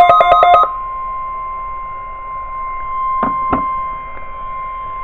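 NOAA Weather Radio warning alarm tone, a single steady 1050 Hz tone, sounding as part of the weekly test signal. It takes over from a rapidly pulsing beep that ends less than a second in. Two short, soft knocks come about three seconds in.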